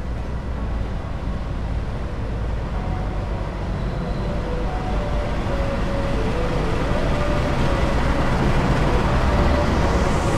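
CC 206 diesel-electric locomotive hauling a passenger train into a station platform, a steady low rumble that grows gradually louder as the locomotive approaches and passes.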